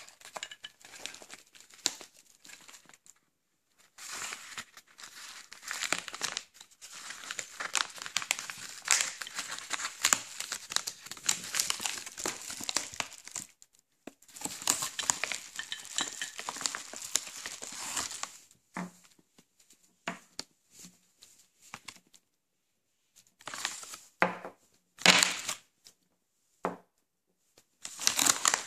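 Padded paper mailer being torn open and crinkled while hands rummage inside it. Later come a few short knocks as the small spray bottles are taken out and set down on the table.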